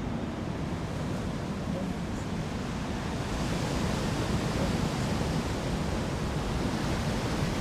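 Stock weather ambience: a steady rushing wash of noise with no distinct events, growing brighter and slightly louder about three seconds in.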